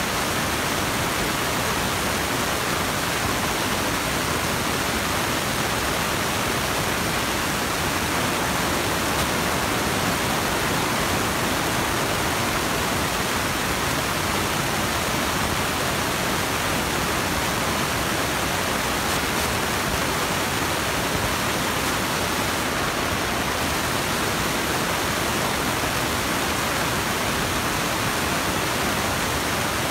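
Steady, unchanging rushing hiss at a constant level throughout.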